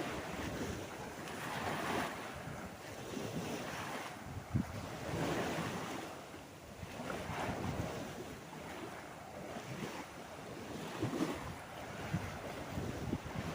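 Sea waves washing onto the shore, the wash swelling and falling away every two to three seconds.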